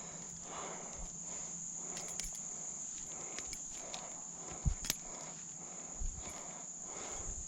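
Steady high-pitched insect trill, like a cricket chorus, with scattered small clicks and a few soft knocks from handling close by.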